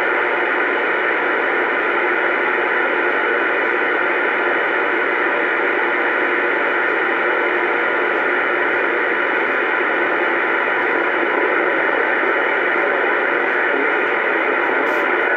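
Steady hiss of AM static from a Uniden Bearcat CB radio's speaker, tuned to channel 28 with no one transmitting.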